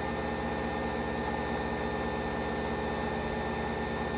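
Nespresso Vertuo coffee machine brewing, its pump and spinning capsule giving a steady whirring hum with a fast, even pulse. This is the louder noise that marks the brew cycle starting to finish.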